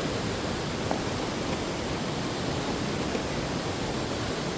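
Steady rushing of a stream or waterfall in the gorge below the living root bridge.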